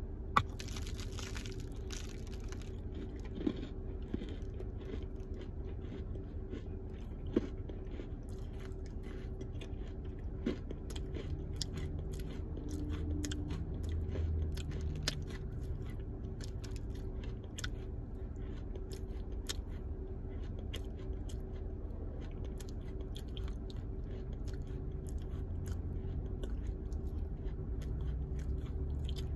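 A ball of dry smoked Mandingo clay being crunched and crumbled: a steady run of small crisp cracks, with a few louder snaps in the first eight seconds.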